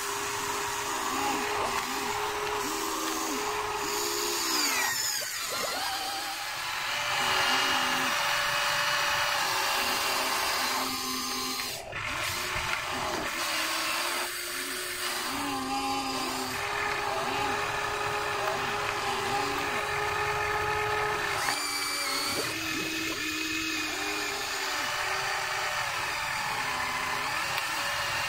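Huina RC excavator's small electric motors whining as it digs and loads mud, the pitch stepping up and down and cutting in and out as different motors start and stop.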